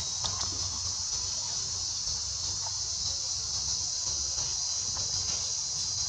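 Steady high-pitched insect chorus, an unbroken shrill drone, with a few faint ticks scattered through it.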